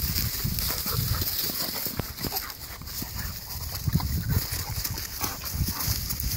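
Several dogs play-fighting at close range: irregular scuffling and jostling, with dog sounds now and then.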